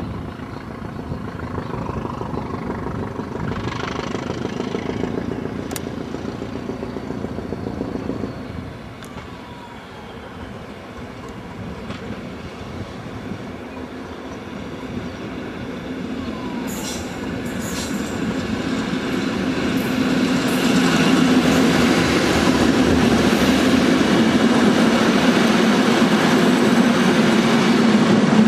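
Northern Ireland Railways Class 450 diesel-electric multiple unit 8458 approaching, its English Electric diesel engine growing louder through the second half into a steady drone, with a few clicks from the wheels about two-thirds of the way through.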